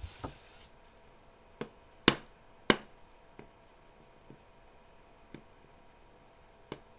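Hammer striking a coconut to crack it open: scattered sharp knocks, mostly light, with two hard blows about two and nearly three seconds in.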